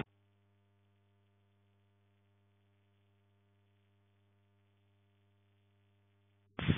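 Near silence with only a faint, steady electrical hum. About six and a half seconds in, loud noise of rain and wind on the microphone cuts in abruptly.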